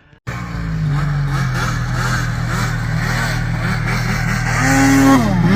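Snowmobile engine running steadily, then revved in the last second or so, its pitch dipping and climbing again. It starts suddenly just after a brief gap.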